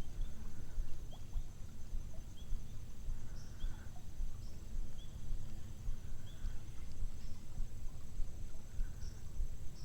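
Quiet riverside outdoor ambience: a low steady rumble with a small bird giving short, high chirps about once a second.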